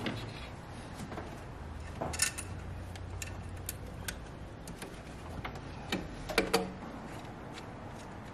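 Scattered small metal clicks and taps as a turbo oil feed line's banjo bolt and copper washers are handled and fitted by hand at the top of the turbocharger, the loudest cluster about six seconds in.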